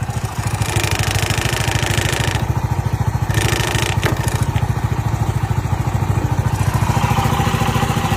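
Honda Pop 100's single-cylinder engine idling with an even, rapid pulse, a loose plate on the bike rattling with it. Two stretches of hissy noise come in, near the first second and again around the fourth.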